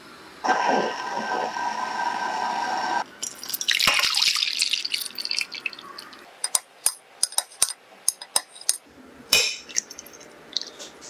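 A steady hiss with a few held ringing tones for about two and a half seconds, cut off abruptly; then liquid poured from a glass measuring jug into a glass baking dish; then a string of sharp clicks of a metal spoon against the glass dish as it scoops out set jelly cubes.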